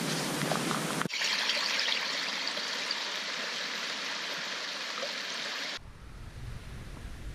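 Running water, a steady trickling hiss like a small stream. The sound changes abruptly twice, and near the end a low rumble comes in underneath.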